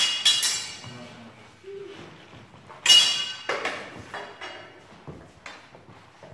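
Steel training swords and bucklers clashing in sword-and-buckler sparring: two quick ringing strikes at the start and a loudest ringing strike about 3 s in, with lighter knocks after it. Each clash rings on and echoes in a large hall.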